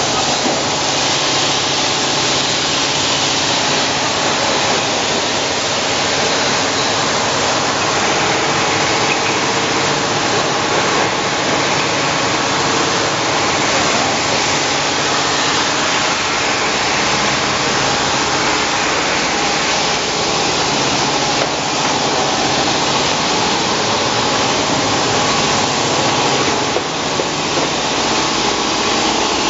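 Steady, loud running noise of a glass-bottle beer filling line: conveyors and filling machinery, with a few faint steady tones under the din.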